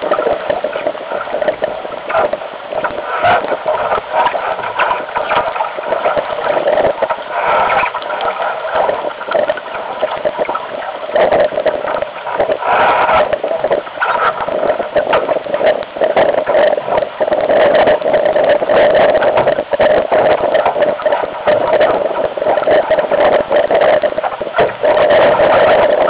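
Water rushing and splashing along a Solo sailing dinghy's hull in strong wind, with wind buffeting the boat-mounted microphone. The noise is dense and constant, broken by frequent short knocks and splashes.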